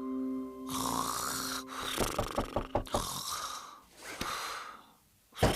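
Cartoon character snoring in sleep: a few long noisy snores, some with a rattling flutter, as a short musical sting dies away in the first second or so.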